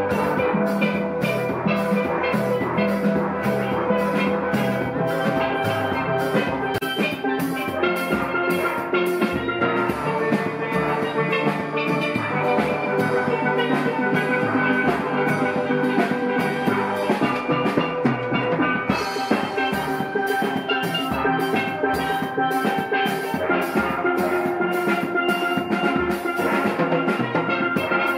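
Live steel band playing: steel pans ringing out a melody over a steady hand-drum beat from djembes.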